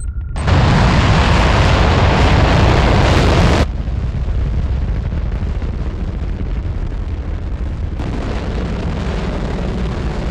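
Sound-designed rocket engine roar: a loud rushing roar that starts suddenly about half a second in, drops to a lower steady rumble after about three and a half seconds, and swells slightly again near the end.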